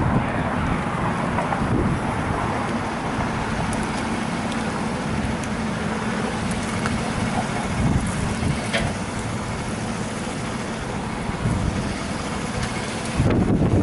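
Steady hum of idling engines and road traffic, with a faint low drone running through it. About thirteen seconds in, a louder rush of wind on the microphone cuts in.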